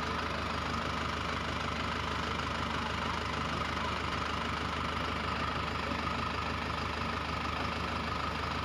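Tractor engine idling steadily, a constant unchanging engine hum with no revving.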